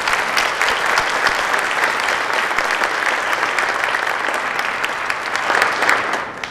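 Audience applauding: many hands clapping together, dying away at the very end.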